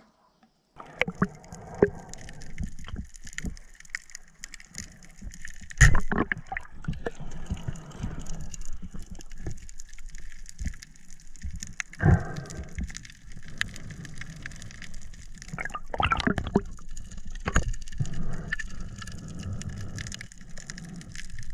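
Water gurgling and sloshing, heard underwater through a diving camera, with a few sharp knocks, the loudest about six and twelve seconds in.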